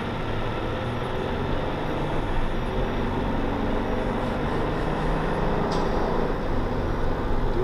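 Steady road and engine noise inside the cabin of a 2011 Honda Odyssey minivan pulling away from a traffic light and accelerating, its 3.5-litre V6 under load.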